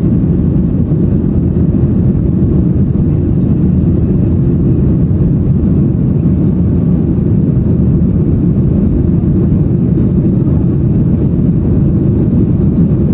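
Steady low roar inside the cabin of a Boeing 737-800 climbing after takeoff: the CFM56-7B turbofans and the rush of air past the fuselage, unchanging throughout.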